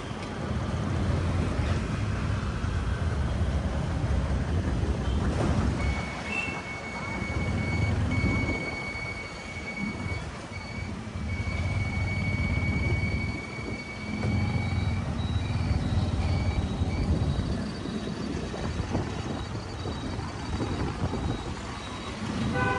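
Street traffic rumbling past, swelling and fading as vehicles go by. From about six seconds in, a steady high electronic beep sounds on and off for roughly ten seconds.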